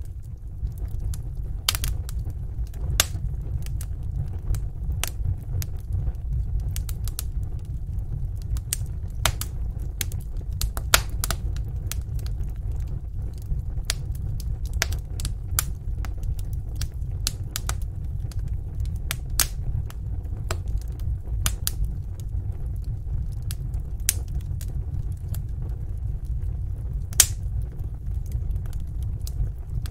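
Wood fire burning in a fireplace: irregular sharp crackles and pops over a steady low rumble of the flames, with a few louder pops scattered through.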